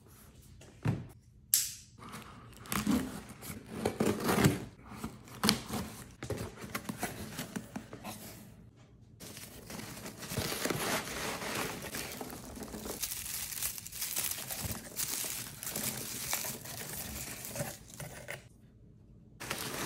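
Hands rummaging through foam packing peanuts in a cardboard shipping box, giving a continuous rustling. A few sharp knocks and crinkles come in the first several seconds, and the rustling stops briefly near the end.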